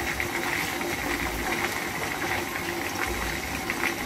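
Chicken drumsticks sizzling as they shallow-fry in hot oil in a pan, a steady sizzle with small crackles and pops throughout.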